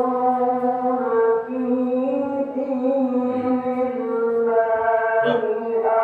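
A voice chanting in long, drawn-out held notes, each pitch sustained for a second or more with only short breaks between phrases.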